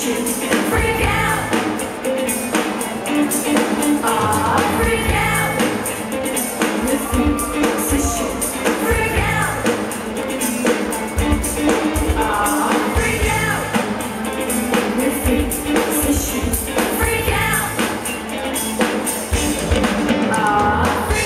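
A live band playing a rock song: electric guitar and a steady beat under a singing voice.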